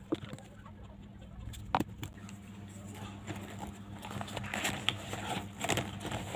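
Plastic pens clicking and knocking against each other as they are handled and slipped into a fabric pencil case, with rustling, busiest near the end. A steady low hum runs underneath.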